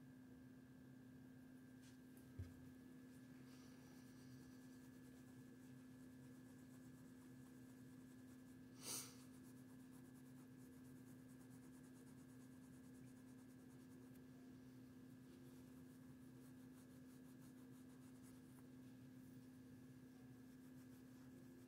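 Near silence with a steady electrical hum. A soft knock comes about two seconds in and a brief rub near the middle: faint handling noises.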